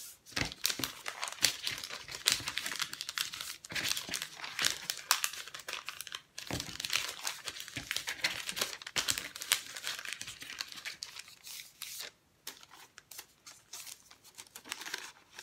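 Book pages being folded back and forth into a paper fan, crinkling and rustling with many sharp crackles as each crease is pressed. The crinkling thins out and gets quieter near the end.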